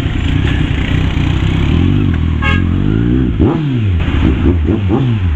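Kawasaki Z1000 inline-four motorcycle engine accelerating on the road, its revs climbing and dropping several times through the second half, over a steady rush of wind and traffic noise.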